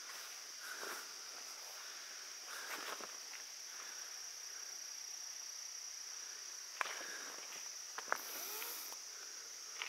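A steady, high-pitched drone of insects such as crickets, with a few scattered footsteps crunching on a gravel road.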